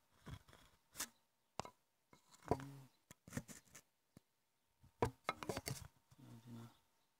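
Faint, irregular clicks and knocks of hands and tools on metal engine parts, with a few short low hums among them.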